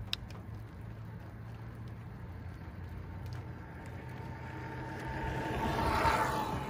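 A vehicle passing close by, its tyre and engine noise swelling to a peak about six seconds in and then fading, over a steady low hum.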